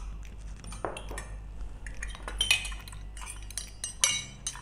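Stainless steel measuring cups clinking against each other and kitchenware knocking lightly on a counter: a handful of separate metallic clinks with brief ringing, the loudest around the middle and near the end.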